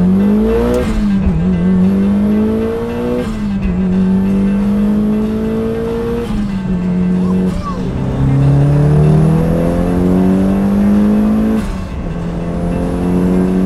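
Turbocharged Mitsubishi Lancer Evolution's four-cylinder engine pulling under hard acceleration, heard from inside the cabin. The engine note climbs steadily through each gear and drops sharply at each of several upshifts.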